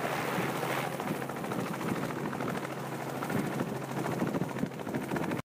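Small helicopter hovering low and settling onto its skids: steady rotor and engine noise with a rapid, even beat of the blades.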